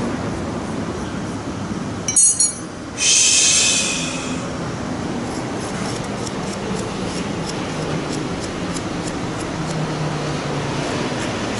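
Chrome sockets and hand tools being handled while rust is cleaned off them. A sharp metal-on-metal clink rings out about two seconds in, followed by a brief scraping rub. Light clicks follow, over a steady background hiss.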